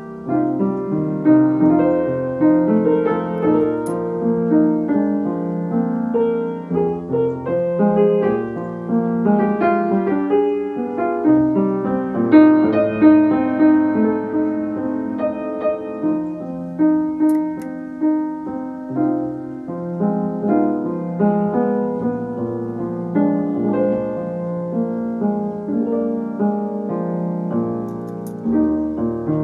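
Background piano music: a gentle piece of many overlapping notes played at an even pace.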